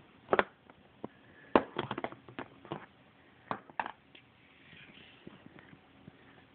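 Handling noise: a string of sharp taps and knocks as plastic 3D glasses and their boxes are picked up and set down, the loudest about a second and a half in, then a faint rustle.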